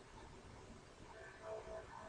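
Near silence: faint room tone, with faint steady tones coming in about a second in.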